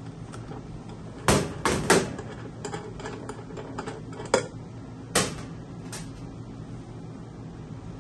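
Metal parts of a stainless-steel Belgian waffle maker clicking and knocking as they are handled during disassembly. There are about five sharp knocks between about one and five seconds in, with lighter clicks between, and it goes quiet in the last two seconds.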